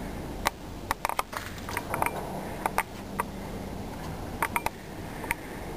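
Scattered sharp clicks and light knocks, irregular and some in quick clusters, over a steady low hum.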